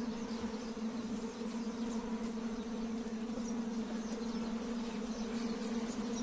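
Swarm of lake midges buzzing: a steady, even hum at one pitch.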